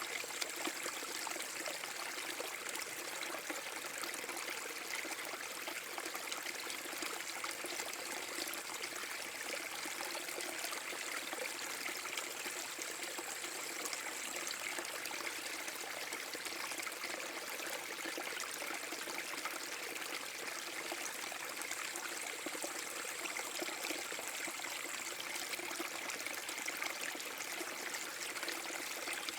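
Small forest brook waterfall: water flowing and splashing in a steady, even rush that does not let up.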